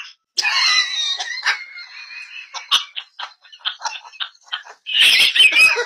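African grey parrots vocalizing over a video call: whistled notes for the first couple of seconds, then a quick run of clicks and chirps, and a louder, noisier squawking burst about five seconds in.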